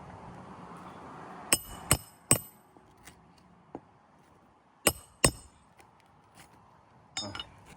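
Hammer striking metal with a ringing clink: three quick blows, a pause, two more blows, then a short rattle of lighter hits near the end.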